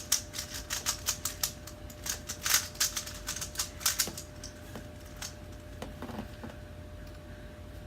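Plastic 3x3 Rubik's Cube being turned fast by hand: a rapid run of clicking layer turns for about four seconds, thinning to a few scattered clicks after about five seconds.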